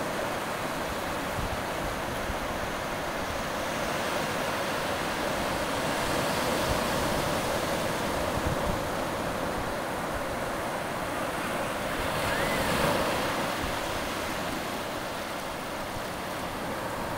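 Shallow water washing over sand at the shoreline: a steady rushing that swells and eases, with some wind on the microphone.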